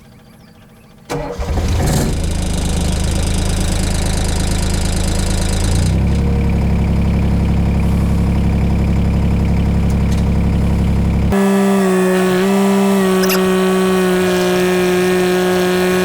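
Takeuchi TB016 mini excavator's diesel engine starting about a second in, then running steadily. Its note changes around six seconds and again about eleven seconds in, when it settles into a steadier, higher-pitched run.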